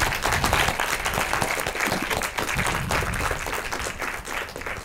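Audience applauding: many hands clapping steadily, dropping a little near the end.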